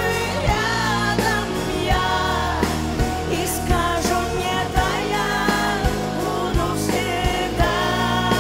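Live pop song: a band playing with singing voices over a steady drum beat of about three beats every two seconds.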